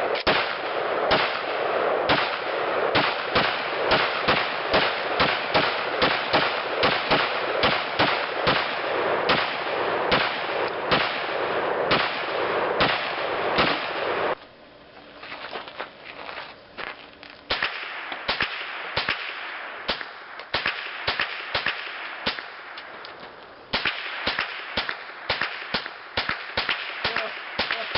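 Rapid gunfire at an outdoor range: a long string of sharp shots, about two a second, with no break. A steady hiss under the shots drops away about halfway through and returns near the end.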